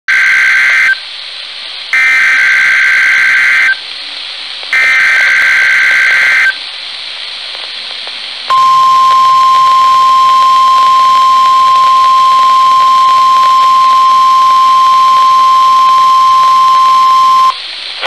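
NOAA Weather Radio test alert from a receiver's speaker. Three harsh, buzzy bursts of digital header data, the first cut short and the next two each nearly two seconds long, with radio hiss between them. After a pause, the steady one-pitch warning alarm tone sounds for about nine seconds and stops just before the end.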